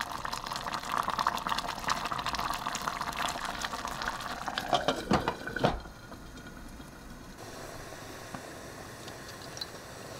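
Thick curry bubbling and spitting in a pot as it simmers, stirred with a wooden spoon. A little past the middle there are a few clinks as a glass lid goes onto the pot, and after that the sound is quieter.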